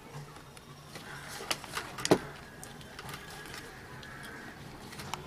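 Small clicks and taps from hands handling a speaker's power circuit board and its parts, the loudest a sharp click about two seconds in, over a faint low steady hum.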